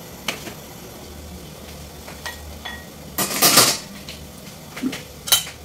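Kitchen utensils and cookware handled: a few light clicks and knocks, and a short, louder clattering scrape about three and a half seconds in, over a faint low hum.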